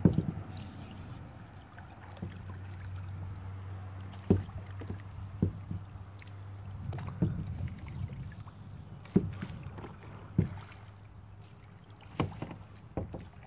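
Plastic kayak knocking and water lapping at the hull, with about nine short sharp knocks scattered through, over a low steady hum that fades out near the end.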